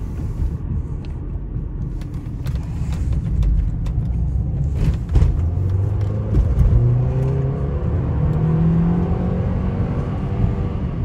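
Audi A4's 2.0 TFSI four-cylinder engine, heard from inside the cabin, over steady road rumble; about six seconds in the engine note rises as the car accelerates. The pull is sluggish, slower than normal, because the engine is running on gasoline heavily mixed with used motor oil.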